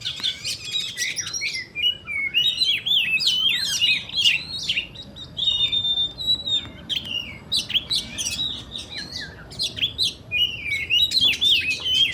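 Oriental magpie-robin singing a long, varied song of quick whistled and chattering phrases, with one held steady whistle about halfway through.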